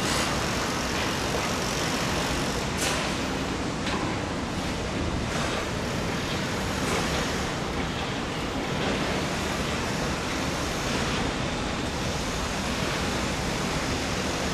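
EF65 electric locomotive moving at a crawl, a steady rumble with a few faint clicks, over a hum of road traffic.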